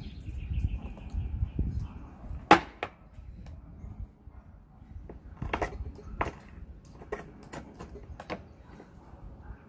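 Hard clicks and knocks of raw oyster shells, a small knife and a glass being handled against a stainless steel bowl and a tabletop: about a dozen sharp taps, the loudest about two and a half seconds in and a cluster in the second half, with a low rumble over the first two seconds.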